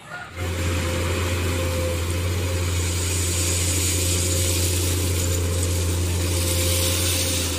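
Komatsu PC210 hydraulic excavator's diesel engine running steadily under load, a deep even drone with a hiss above it, starting abruptly a moment in.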